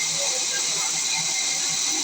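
Sawmill saw running steadily through wood: a continuous loud hiss with a few faint steady tones.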